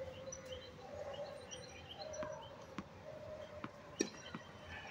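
Birds chirping over a steady outdoor background hum, with several sharp knocks of tennis balls on racket or court in the second half, the loudest about four seconds in.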